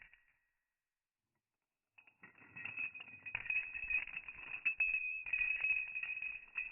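Euro coin spinning on a hard surface: a steady high metallic ringing over a dense rattle. It starts about two seconds in, after a brief fading rattle and a short silence.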